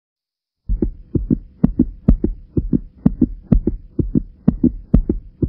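Heartbeat sound effect: paired lub-dub thumps, about two beats a second, over a faint steady hum. It starts just under a second in and cuts off suddenly at the end.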